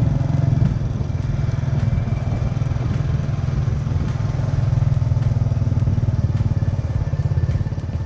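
Small motorcycle engine running steadily under way, with a fast even pulsing and road noise. It drops away near the end.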